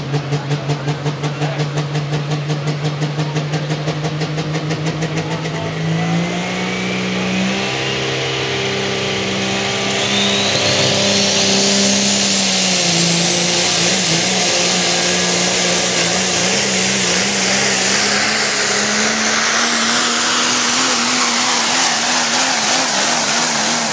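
Super stock diesel pulling truck running with a regular pulsing note, about three pulses a second, then taking off about six seconds in and pulling a sled under full load. The engine note rises and a high turbocharger whistle climbs steadily and holds high to the end.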